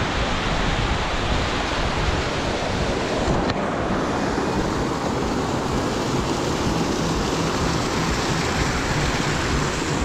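Small mountain waterfall rushing steadily over rock, with wind buffeting the microphone.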